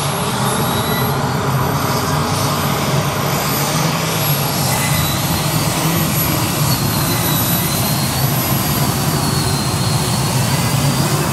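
Modified pulling tractor at full power hauling the weight-transfer sled: a loud, unbroken engine noise with a high whine that drifts slightly in pitch over it.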